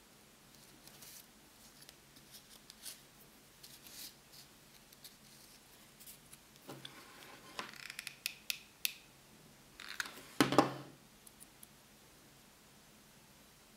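Small cut paper pieces handled on a tabletop: scattered light ticks and short paper rustles, with a louder crackling rustle about ten and a half seconds in.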